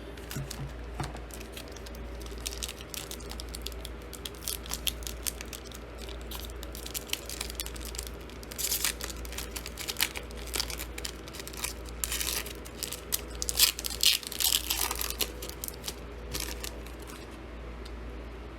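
A trading-card pack wrapper being torn open and crinkled by hand, a long run of crackling rips and rustles.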